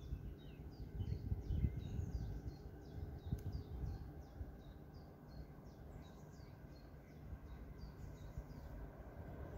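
Small birds chirping, a fast run of short, high downward-sweeping notes a few times a second, over an uneven low rumble.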